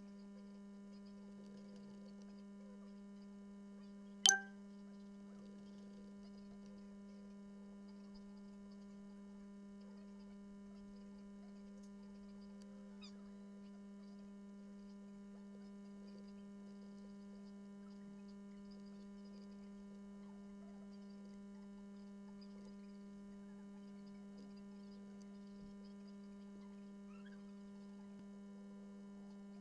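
Steady electrical hum with a thin buzz of overtones above it. One sharp click about four seconds in.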